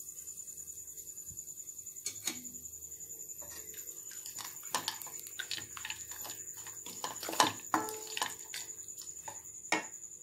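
Wooden spatula stirring cooked vermicelli and peanuts in a nonstick pan: irregular soft scrapes, with a few sharper knocks against the pan.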